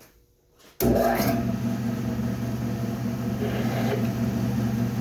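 Electric motor of a shop drilling machine running steadily with a low hum, which cuts in abruptly about a second in.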